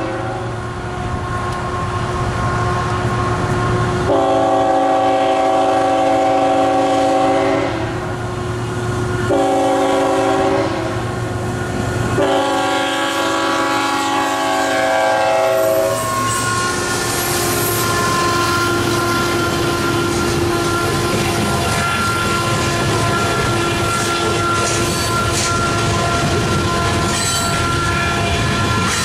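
The lead locomotive's horn sounds the grade-crossing signal: the end of one blast, then a long blast, a short one and a final long one. The KCS ET44AC-led freight train then rolls through the crossing, its engines and wheels rumbling and clacking over the rail joints as tank cars pass. The crossing's GE electronic bells ring underneath.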